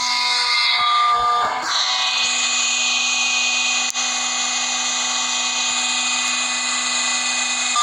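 Motor of a crushing machine running with a steady whine, its pitch unchanging, with a brief dip about four seconds in.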